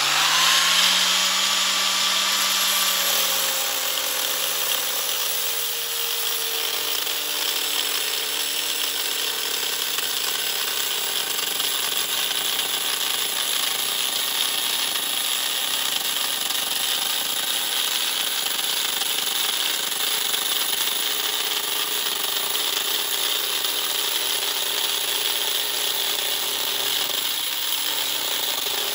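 Mains-powered angle grinder with a cut-off disc, running and cutting through a car radiator's finned core: a steady, loud whine with a hissing grind. The pitch and level dip slightly about three seconds in as the disc bites into the core.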